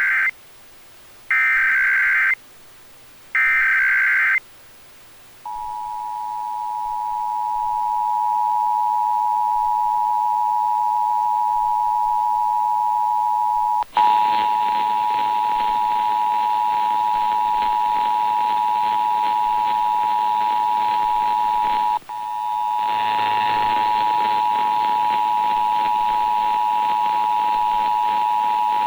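Emergency Alert System national test tones over FM radio. First come short screeching data bursts of the SAME header, the first already under way and two more about a second each. After a brief pause the steady two-tone EAS attention signal fades up and holds. About halfway through, a harsh buzzing distortion joins the tone and drops out briefly once.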